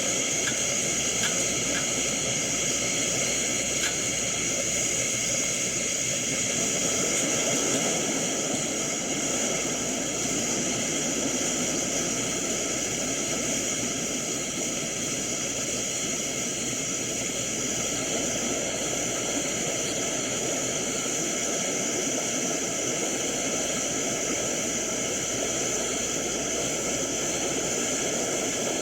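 Laboratory gas burner running, its flame giving a steady, even hiss that does not change.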